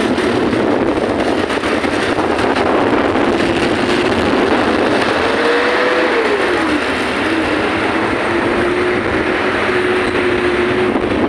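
Steady rush of road and wind noise from a moving vehicle, with a low engine hum that rises in pitch about five seconds in, then drops back and holds steady.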